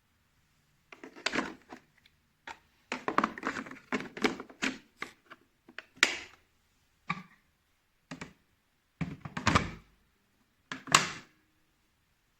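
Irregular knocks, clicks and thunks of hard objects being handled and set down, in a small room.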